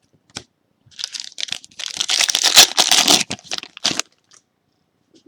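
Foil trading-card pack wrapper crinkling as it is torn open and handled, a dense rustle that builds for about three seconds and is loudest in the middle, after a couple of light card clicks.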